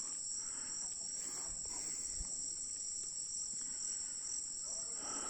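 Steady, high-pitched chorus of insects trilling without a break, such as crickets or cicadas. Faint voices can be heard near the end.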